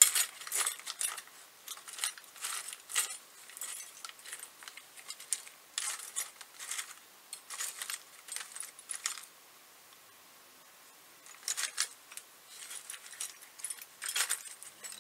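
Small parts clinking and rattling in a metal tin as a hand rummages through it, in irregular bursts with a short pause about two-thirds of the way through.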